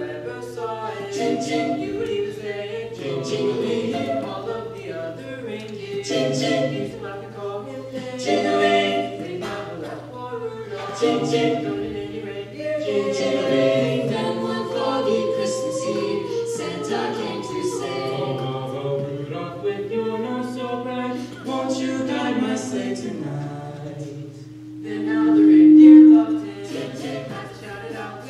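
Small mixed-voice vocal ensemble singing a cappella, several parts in harmony. Near the end a long held note swells to the loudest point.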